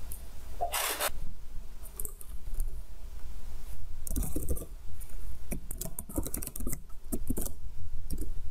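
Keys of a computer keyboard clicking in quick runs as a password is typed, after a short scraping rustle about a second in, over a low steady hum.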